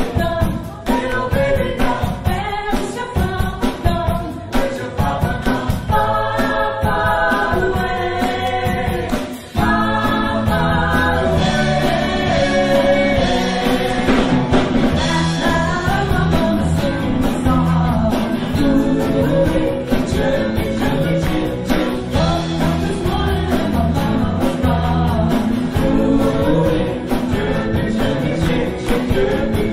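Live pop-rock band playing, with women singing over guitars and drums. About nine and a half seconds in the music drops out for a moment, then comes back fuller.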